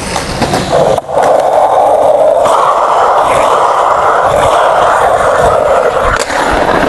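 Skateboard rolling on concrete on bare Hello ABEC 7 bearings with no wheels fitted: a loud, steady rolling noise, very noisy, that starts about a second in and runs until shortly before the end.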